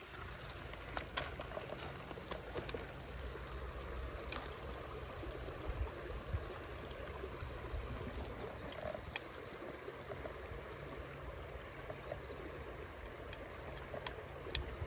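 Shallow river water running over stones, a steady rushing trickle, with a few small sharp clicks scattered through it.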